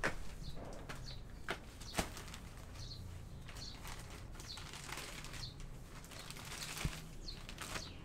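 Plastic bag of potting soil rustling and crinkling as it is handled and opened, with a few sharp clicks along the way and the densest crinkling past the middle.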